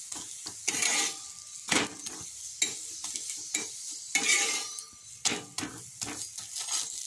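A radish-stuffed paratha sizzling in oil in a pan, with a spatula pressing, scraping and tapping against the pan in irregular clicks and scrapes over the steady hiss.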